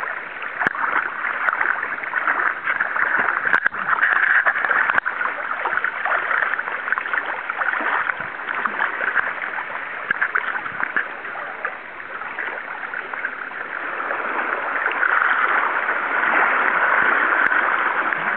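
River water flowing steadily, a full rushing hiss, with a few sharp clicks in the first five seconds; it grows louder near the end.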